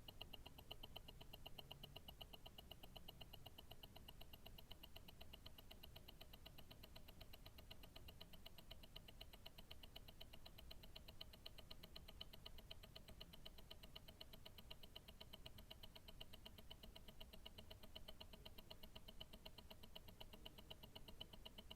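Invicta Grand Octane tourbillon watch movement ticking steadily, several quick, even ticks a second, heard faintly through a stethoscope.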